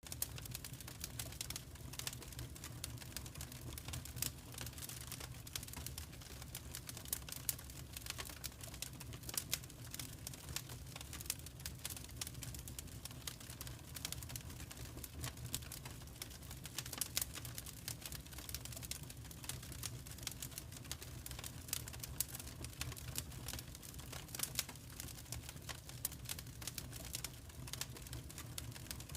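Wood fire crackling: dense, irregular snaps and pops over a steady low rumble.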